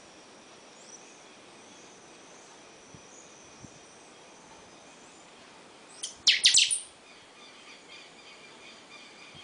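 A caged chanchão calling: a faint, thin high trill, then about six seconds in a short, loud burst of several sharp calls in quick succession, followed by softer chirps.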